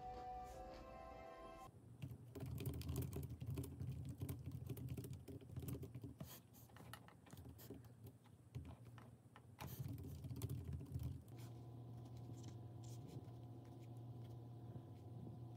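Typing on a compact wireless keyboard with round keys: a quick, uneven clatter of key clicks that eases off to a few faint clicks over a low steady hum after about ten seconds. At the start a little soft music plays and cuts off abruptly.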